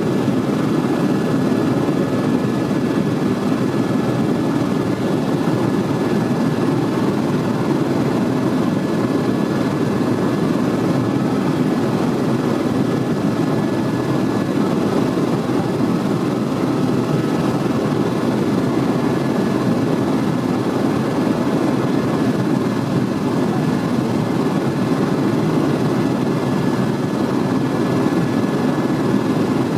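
Tour helicopter in steady cruising flight, heard from inside the cabin: an even, unchanging drone of engine and rotor with a faint steady whine above it.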